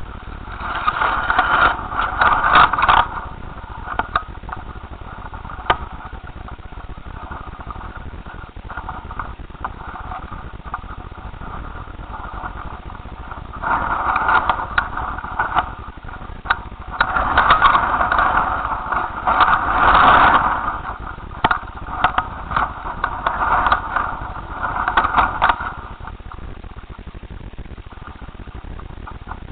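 Strong wind buffeting the microphone of a kite-borne camera, with rattling in the gusts. It surges hardest about a second in and again from about halfway through to near the end.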